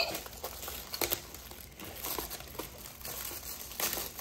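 Plastic wrapper crinkling and rustling in irregular bursts as it is pulled off a new RC crawler truck.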